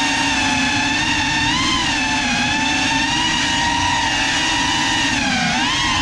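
Small quadcopter drone's electric motors and propellers whining steadily, the pitch rising briefly about halfway through and dipping then rising again near the end as the throttle changes.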